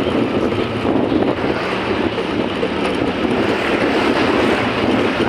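Motorcycle riding along: a steady rush of wind and road noise.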